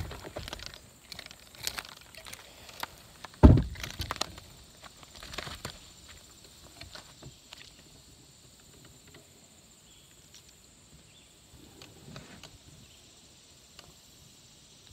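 Scattered clicks, rustles and knocks of a small fish being landed and handled in a kayak, with one loud thump about three and a half seconds in; the handling sounds thin out in the second half.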